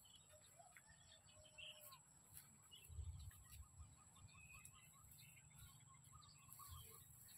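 Near silence with faint, scattered bird chirps in the distance and a brief low rumble about three seconds in.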